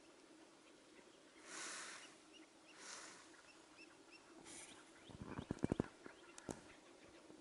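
Chukar partridge calling: a few raspy bursts, then a rapid run of sharp clucks about five seconds in.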